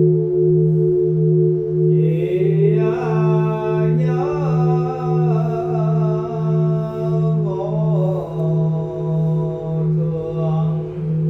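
A temple bell's long ringing hum, steady with a slow throb. About two seconds in, a single voice starts a slow, gliding chant over it and fades out near the end.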